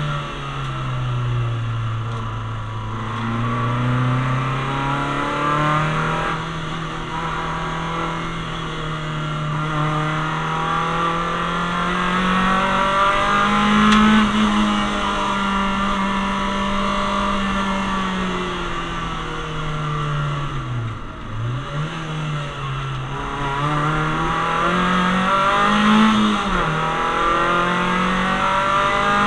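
Citroen Saxo VTS's 1.6-litre 16-valve four-cylinder engine under hard track driving, heard from inside the cabin. The engine note climbs and falls continuously as it pulls through the revs and drops back. About two-thirds of the way in it dips sharply, followed by a few quick rises and falls in pitch.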